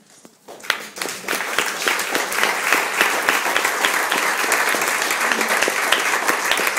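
Audience applauding: scattered claps begin about half a second in and swell within a second into steady, dense applause.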